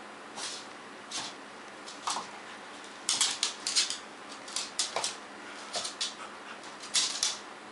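A Boston terrier's claws clicking and scuffling on a wood floor as it moves in on a cat. A few scattered taps come first, then quick clusters of taps from about three seconds in.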